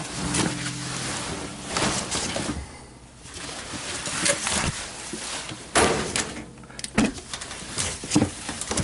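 Wet laundry being pulled and shifted by hand in a top-load washer tub around the agitator, with irregular rustling and swishing and a few sharp knocks against the tub. The clothes are being spread out from a tight ball that had thrown the washer off balance.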